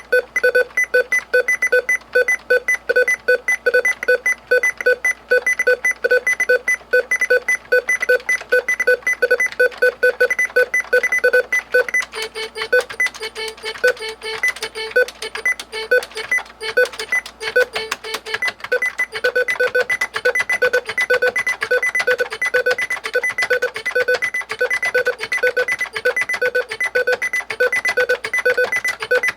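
Keyboard beeping: short electronic beeps repeating rapidly, several a second, in an even stream. For a few seconds around the middle the beeps turn irregular, then the even stream resumes.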